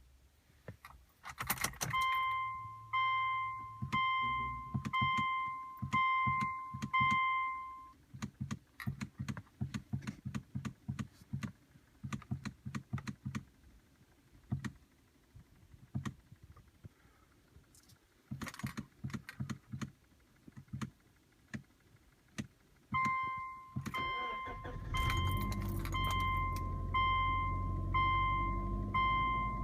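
Key turned in the ignition of a 2005 Subaru Outback, followed by a dash warning chime sounding about once a second. Then fast runs of sharp clicks from behind the dash or center console, the intermittent clunking that comes on with the key in the power position while the a/c blows but not cold. Near the end the chime sounds again over a steady low rush.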